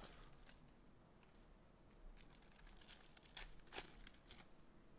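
Faint crinkling with a few light clicks and taps, from a trading-card box and its plastic wrap being handled; the clearest ticks come in the second half.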